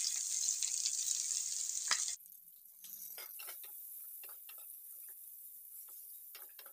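Potato, carrot and drumstick pieces sizzling in hot oil in a kadai; about two seconds in the loud sizzle cuts off suddenly, and a spatula stirs the vegetables with scattered scrapes and clicks against the pan over a faint sizzle.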